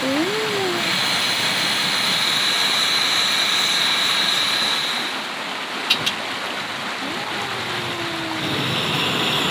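Steady rushing of a nearby stream, with a high steady tone that drops out about halfway and returns near the end. About six seconds in come two sharp metallic clicks as a gas canister is fitted to a camping stove's hose regulator.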